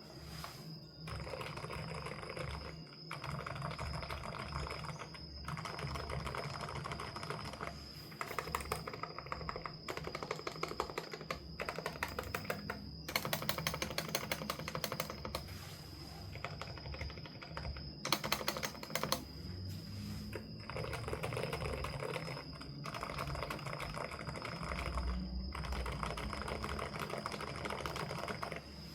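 Typing on a Dareu A104 Pro Flex mechanical keyboard with Silent Oak switches: runs of rapid keystrokes broken by short pauses, with a few louder stretches of sharper key strikes.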